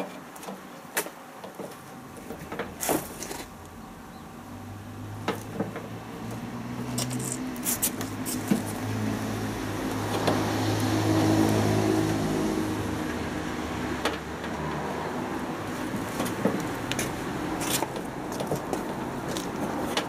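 Clicks and knocks from hands working a new drive belt onto a washing machine's drum and motor pulleys. A low, steady hum comes in about four seconds in, swells near the middle and eases off.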